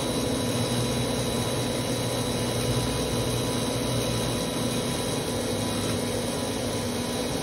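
Metal lathe running steadily, with a hole saw in its chuck cutting through the interior knuckles of a brass trumpet valve casing: an even mechanical hum with a few constant tones.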